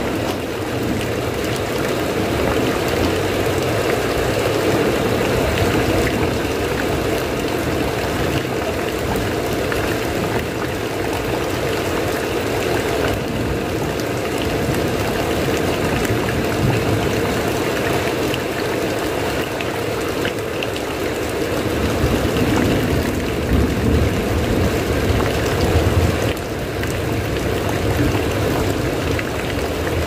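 Steady rain falling on a house roof, swelling a little for a few seconds past the middle.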